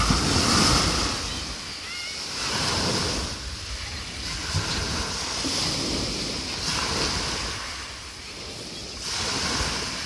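Small sea waves breaking and washing up a pebble beach. The surf hiss swells and fades with each wave.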